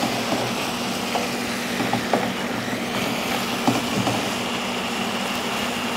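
Empanada filling sizzling steadily in a skillet on the stove over a steady low hum, with a few light knocks against the pan.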